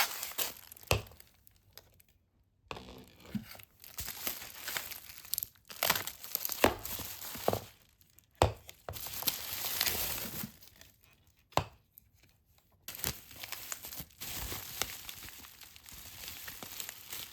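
Plastic or paper packaging crinkling and rustling as it is handled, in irregular bursts with a few sharp clicks and short pauses.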